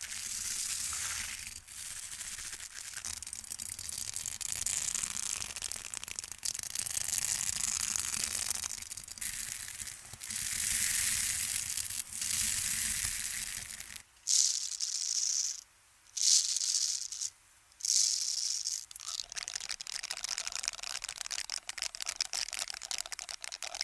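Stiff brush bristles scratching in continuous rapid strokes, a crisp hissing rasp. For a few seconds in the middle it breaks into several short separate strokes with brief silences between them.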